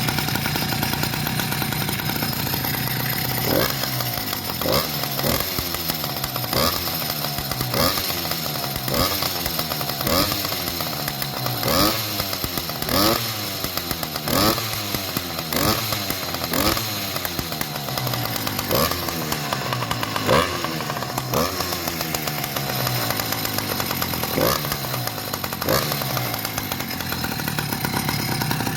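A small motorcycle engine running through its original exhaust, the one about to be replaced. It idles at first, then is blipped again and again, about one quick rev a second, each rising and falling back, before settling to idle near the end.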